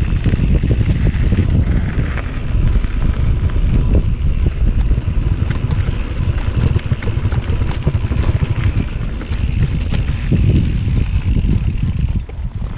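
Mountain bike ridden over a rough trail: a loud, uneven low rumble of wind on the microphone and tyres on the ground, with scattered rattles and clicks from the bike.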